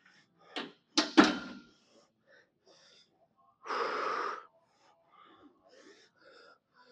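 A man breathing hard after a heavy set of Smith machine squats, with sharp gasps and a loud clank about a second in as the loaded bar is racked. A long wheezing breath follows near the middle, then faint panting.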